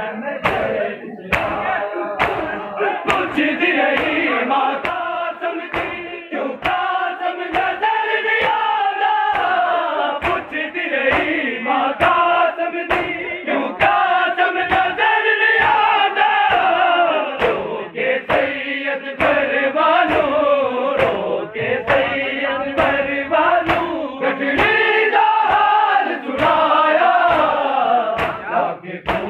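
A crowd of men chanting a noha, the Shia lament for Qasim, behind a lead singer on a microphone, over a steady beat of sharp slaps from matam: many hands striking bare chests together.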